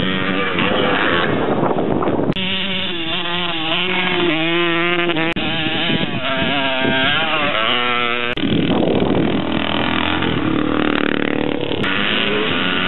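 Engines of pre-1974 air-cooled vintage motocross motorcycles revving up and down, with gear changes, as the bikes ride a dirt track. The sound jumps abruptly three times. In the last few seconds several bikes run together, making a denser, busier engine sound.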